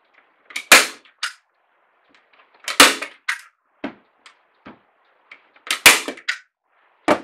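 Hand staple gun fired four times, driving staples through watercolour paper into a wooden frame: sharp snaps a couple of seconds apart, the first three each followed by a lighter click.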